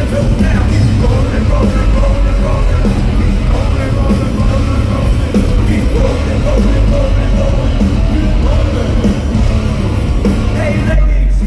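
Nu-metal band playing live at full volume, with shouted and sung vocals over heavy guitars, bass and drums.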